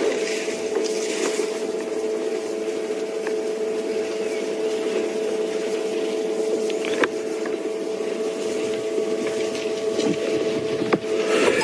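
Steady hum of an open safari game-drive vehicle's engine idling, with a few faint clicks.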